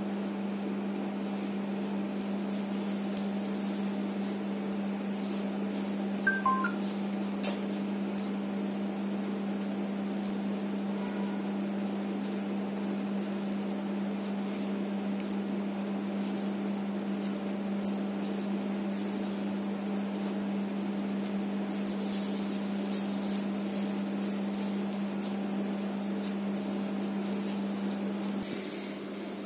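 Steady low hum of room machinery. Over it come faint, short high ticks every second or so and a brief two-note chirp about six seconds in, made as the keys of a handheld digital coating thickness gauge are pressed.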